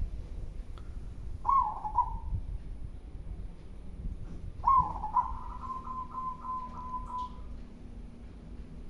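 Zebra dove (local perkutut) cooing: a short coo about a second and a half in, then a longer coo near the middle whose note runs on as a rolling trill of about four pulses a second for some two seconds.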